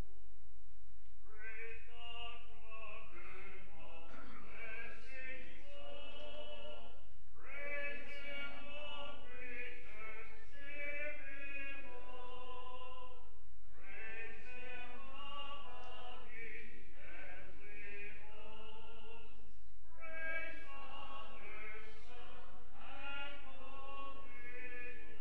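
A congregation singing a hymn unaccompanied, in four phrases with short breaths between them, starting about a second in.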